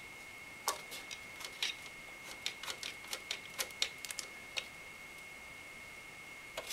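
Irregular small metallic clicks and ticks of thumb screws being turned by hand on the CPU cooler's retention brackets, snugged down without tools; the clicking pauses for about two seconds near the end. A faint steady high whine runs underneath.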